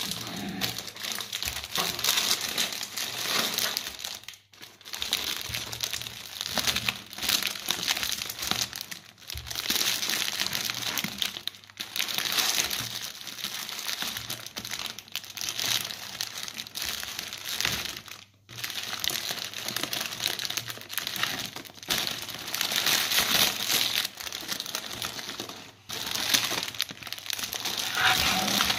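Shiny printed plastic gift wrapper crinkling and rustling as hands handle it, untie its ribbon and pull it off a large chocolate egg, with a couple of short breaks.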